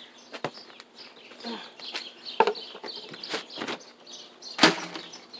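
Chickens clucking and chirping, with several sharp knocks and clatters close by, the loudest about four and a half seconds in.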